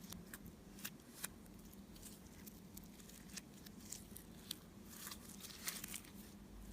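Slime being squished and stretched by hand, giving faint, irregular sticky clicks and crackles, with a few sharper pops about a second in and again near the end.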